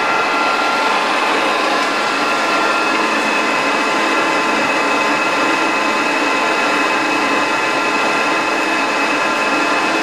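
Large engine lathe running, its spindle turning a steel shaft: a steady mechanical hum with several constant whining tones from the drive and gearing.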